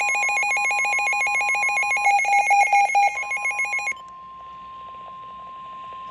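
A Midland WR-120 weather radio's electronic alert warbles rapidly over the steady 1050 Hz NOAA Weather Radio warning alarm tone, which signals an incoming warning. The warble stops about four seconds in, leaving the steady alarm tone over radio hiss.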